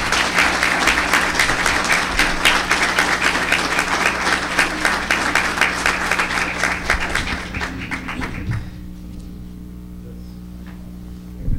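Audience applause, a dense patter of many hands clapping, that dies away about eight seconds in, leaving a steady low hum.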